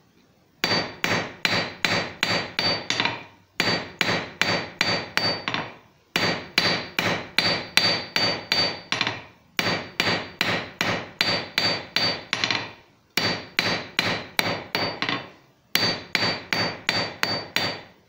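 Hand hammer striking a small copper bar on an anvil, rough-forging it square. The blows come in six quick runs of about four a second, with brief pauses between, and the anvil rings on each blow.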